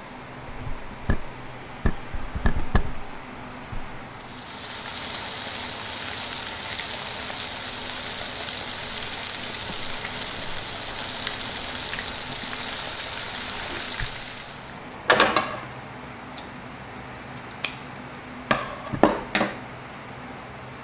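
Small battered fish frying in a pan of hot oil: a steady, high sizzle that starts about four seconds in and stops about eleven seconds later. A few sharp knocks come before it and several more after it.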